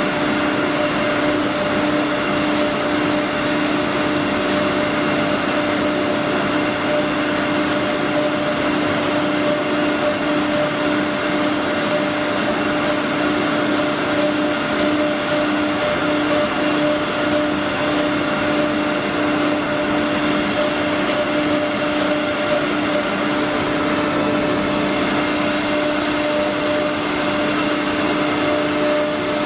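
Multi-head, four-spindle CNC wood router running steadily, its spindles giving a constant whine over a rushing machine noise.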